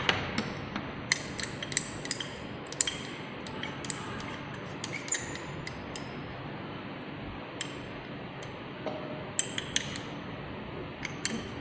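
Light, irregular clinks and taps of a glass dropper pipette knocking against a small glass beaker as it is worked inside the sample, over a steady background hiss.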